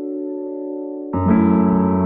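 Background music on an electric piano or keyboard: a held chord, then a new, louder and fuller chord struck about a second in.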